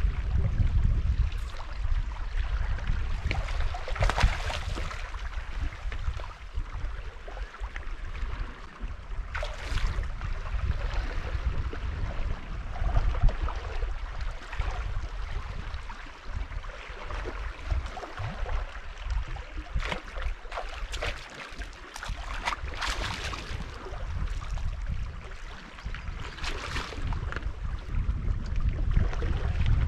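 Wind rumbling on the microphone over water lapping and splashing at the angler's feet, with several sharper splashes as a hooked bass is played and landed.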